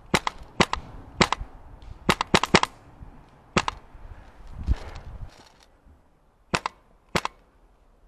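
Airsoft rifles firing single shots: about a dozen sharp cracks, several in quick pairs, over the first four seconds, then two more near the end. A softer low thud comes about halfway through.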